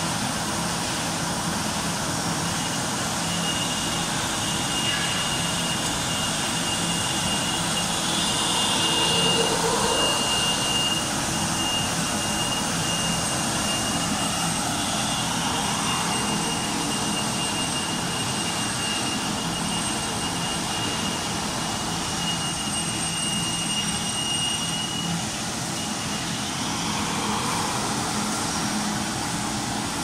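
Vertical insulating-glass washing machine running: a steady rushing noise over a low hum, with a thin high whine that comes in a few seconds in and drops out near the end.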